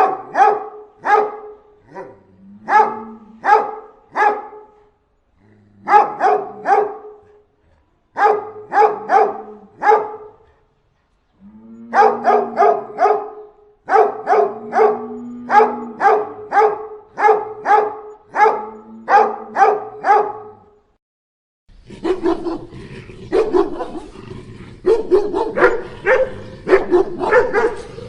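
Dog barking angrily in quick bouts of several barks, with short pauses between the bouts. About 22 s in it changes to a different barking recording with steady background noise behind it.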